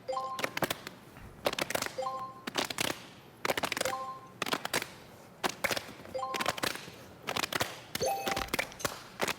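Hands clapping and slapping in a fast rhythm game, in quick clusters of sharp slaps that repeat about every two seconds. Each cycle starts with a short beep-like tone, keeping a steady beat.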